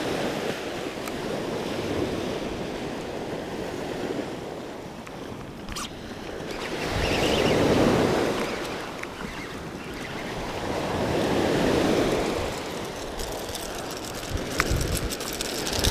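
Small surf breaking on a sandy beach, a steady wash that swells and fades as waves come in, with two larger waves about halfway through and a few seconds later. Wind buffets the microphone.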